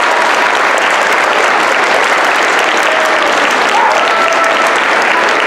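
Audience of schoolchildren and adults applauding, steady clapping throughout.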